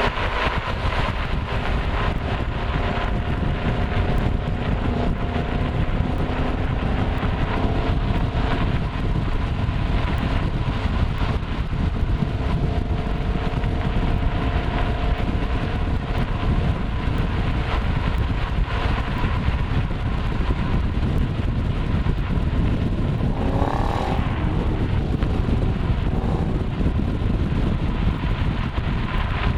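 Ford Mustang Shelby GT500's V8 running steadily under way, a continuous exhaust drone with road noise. There is a short rise and fall in pitch a little past two-thirds of the way through.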